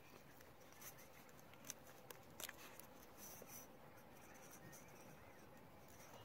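Near silence with a few faint clicks and scratches: thin wire being twisted into a loop where it comes out of a styrofoam ball.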